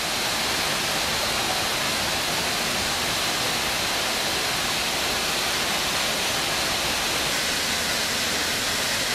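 Waterfall cascading down a cliff into a pool: a steady, even rush of falling water.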